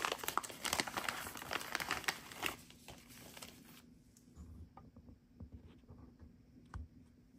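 Plastic packaging crinkling as a package is opened and handled, with dense rustling for about four seconds, then a few faint clicks and ticks.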